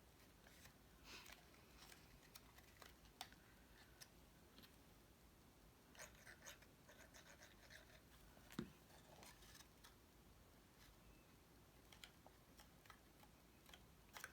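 Faint rustling and light clicks of cardstock pieces being handled and pressed into place while gluing panels onto a paper box, with one soft tap a little past halfway.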